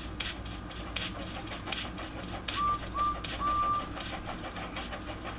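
Steam locomotive chuffing at a steady, even rhythm, about two to three chuffs a second, with three whistle toots halfway through: two short and one longer.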